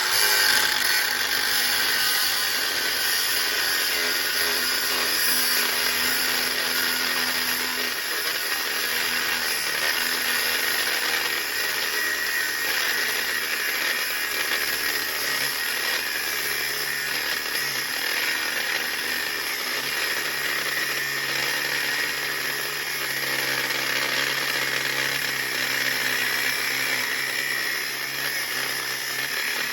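Angle grinder with a cut-off disc running under load, cutting through the head of a snapped steel bolt: a steady high whine over a dense grinding hiss, the pitch wavering slightly as the pressure on the disc changes.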